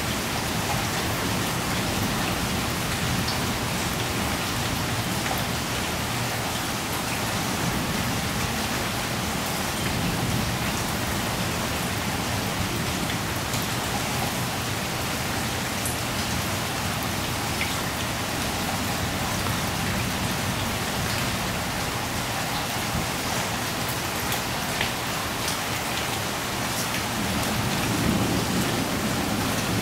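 Steady rain falling: an even hiss with scattered individual drips.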